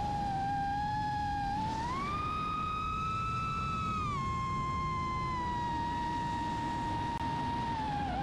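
Custom 5-inch FPV quadcopter's motors whining in flight, the pitch rising sharply about two seconds in, dropping back near four seconds, then sagging slowly as the throttle changes. Wind buffets the microphone underneath.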